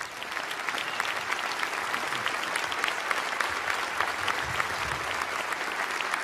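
Large audience applauding; the clapping swells in over the first half second, then holds steady.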